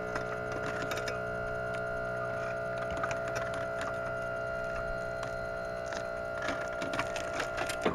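Electric motor of a van's rear wheelchair platform lift running with a steady hum as the platform is raised. It cuts off abruptly near the end.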